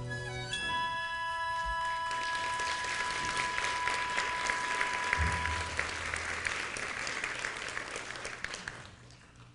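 Theatre audience applauding at the end of a musical number, with the music's last held note sounding under the clapping for the first few seconds. The applause dies away near the end.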